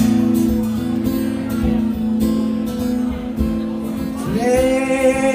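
Acoustic guitar strummed in sustained, ringing chords. Near the end a long held note slides up into place over the chords.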